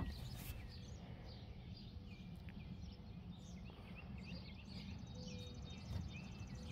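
Faint outdoor background: a steady low rumble with small birds chirping now and then.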